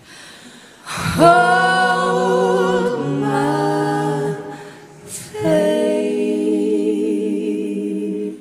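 Several women's voices singing a cappella in close harmony, live. A loud held chord with vibrato enters about a second in and steps down to a lower chord; after a brief dip a second held phrase comes in around five seconds and stops near the end.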